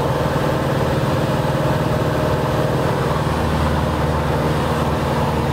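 Cessna 180's Continental O-470 six-cylinder engine and propeller running steadily at flight power, a loud even drone heard inside the cabin.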